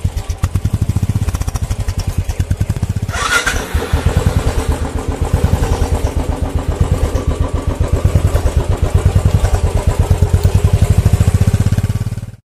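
A small engine running with an even, rapid pulse of about ten beats a second. The beats come slower at the start and settle within the first second. It cuts off abruptly near the end.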